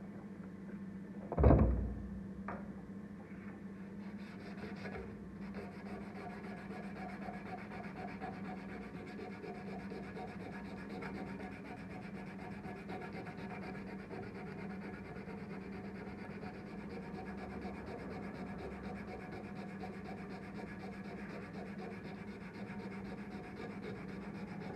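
Steel blade being hand-sanded with sandpaper: a steady scratchy rubbing that starts about four seconds in, over a steady low hum. A single sharp knock comes about a second and a half in.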